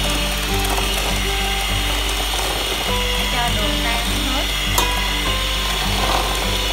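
Electric hand mixer running steadily, its beaters whipping eggs and sugar in a bowl until they foam.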